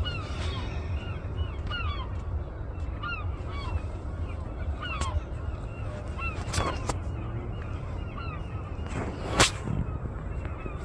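A flock of birds calling over and over, many short falling honk-like calls overlapping, over a steady low wind rumble. There is a sharp knock about nine seconds in.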